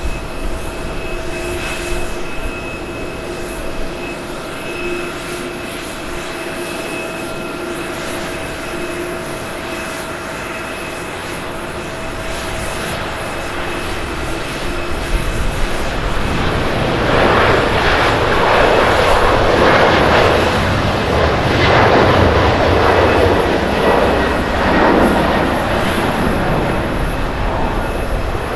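Boeing 777-200ER's twin Pratt & Whitney PW4000-series turbofans at takeoff thrust during the takeoff roll and liftoff: a steady jet whine with several held tones, swelling about halfway through into a much louder, rough roar that stays up to the end.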